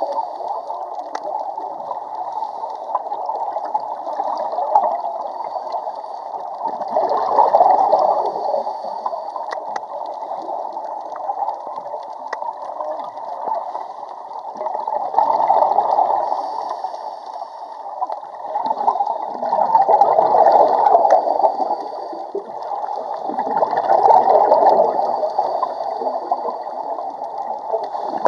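Underwater bubbling and gurgling from a scuba diver's exhaled air. The gurgle swells in surges a few seconds apart.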